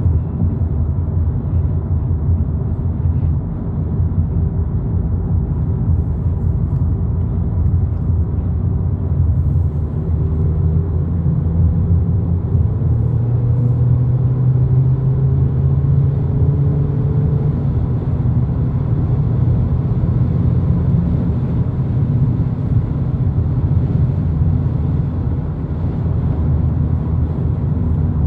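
Steady road and engine noise of a VW Polo GTI cruising at freeway speed: a low rumble of tyres and drivetrain, with faint engine tones that drift slightly in pitch about halfway through.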